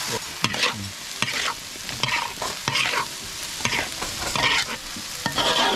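Cut long beans and eggs sizzling in a hot oiled wok, stirred and tossed with a metal spatula that scrapes the pan in repeated strokes, about two or three a second, over a steady frying hiss.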